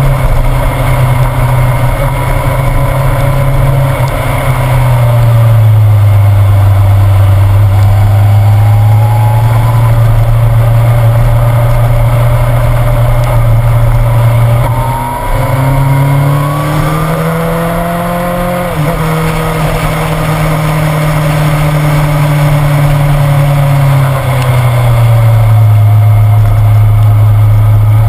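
Motorcycle engine running under way, heard close up from the bike itself. Around the middle the engine note drops and climbs again, and a few seconds later it rises and then falls suddenly, as with gear changes.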